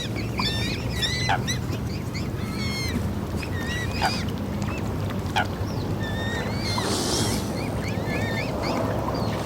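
Waterfowl calling on open water: many short, wavering, high-pitched calls, one after another, with a few sharp clicks, over a steady low rushing background.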